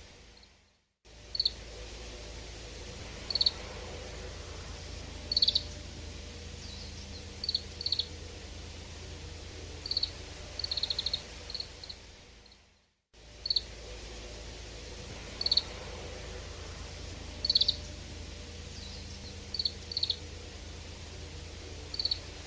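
Grey-capped greenfinch calls: short, high chirps and quick twittering trills in small groups every second or two, over a steady low background hum. The sound fades out twice, once just after the start and once about halfway, and the same sequence of calls then repeats.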